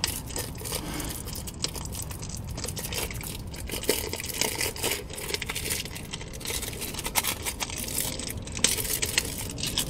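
Clear plastic wrapping crinkling and tearing as a new oil filter is unwrapped by hand: an irregular run of small crackles and rustles.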